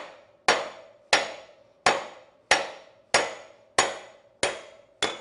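Hammer blows on a collet-type bearing remover, eight evenly spaced strikes about two-thirds of a second apart, each ringing briefly. They are trying to drive a sealed wheel bearing out of an aluminum motorcycle wheel hub, where the bearing is frozen in and does not come out.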